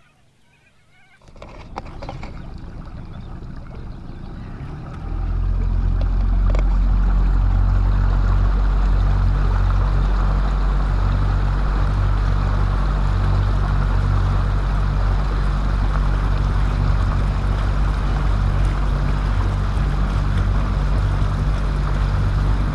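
Boat under way, its outboard motor running steadily with water and wind noise; it gets much louder about five seconds in and then holds steady.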